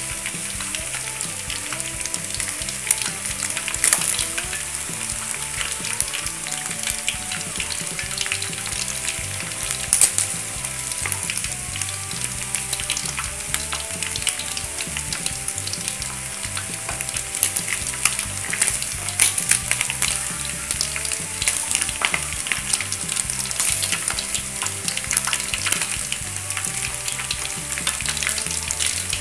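Chicken pieces deep-frying in a wok of hot oil: a dense, steady sizzle full of crackling oil pops, with a few louder pops, the loudest about ten seconds in.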